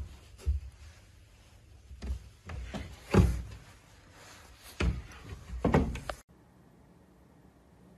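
Wooden cabinet doors being opened and shut by hand, giving a series of knocks and thumps, the loudest about three seconds in. The sound cuts off abruptly just after six seconds.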